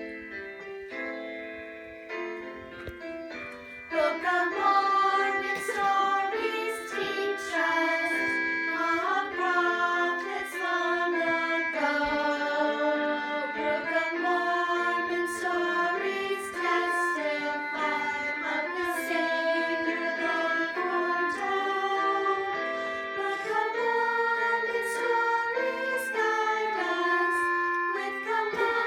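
A children's song: a piano plays the introduction alone, then about four seconds in voices begin singing the melody over the piano accompaniment.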